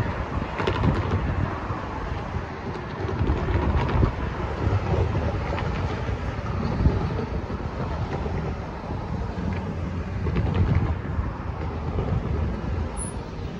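Road traffic passing: cars and a van driving over a level crossing, tyre and engine noise rising and falling as each goes by, with wind buffeting the microphone.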